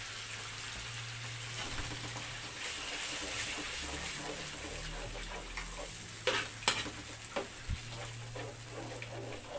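A steel ladle stirring thick cream-of-mushroom sauce in a steel wok over the heat, with a steady low sizzle as the condensed soup melts into the butter. The ladle clinks against the wok twice a little past the middle.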